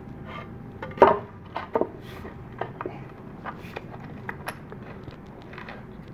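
Scattered small clicks and taps of hardware being handled: a long screw and metal washer being set against the wooden stool frame, the loudest tap about a second in.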